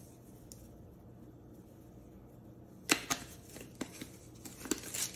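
Spice shakers being handled over the cutting board: quiet at first, then about three seconds in a string of sharp clicks and taps from the containers.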